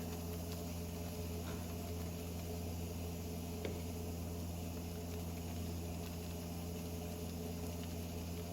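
Steady low mechanical hum with a faint hiss, like a fan or machine running in a small workshop, with one small tap about three and a half seconds in.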